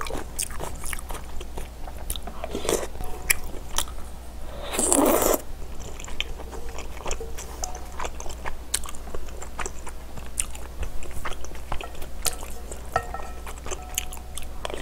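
Close-miked eating: chewing soft rice cakes and dumplings in spicy soup, with wet mouth clicks and the spoon scraping and knocking in the bowl. A loud slurp comes about five seconds in.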